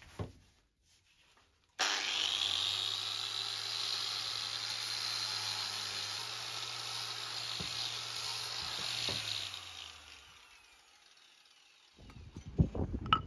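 Angle grinder with a sanding disc switched on about two seconds in, its whine rising as it spins up, then running steadily while it sands and rounds off the end of a wooden shovel handle. About ten seconds in it is switched off and winds down with a falling whine.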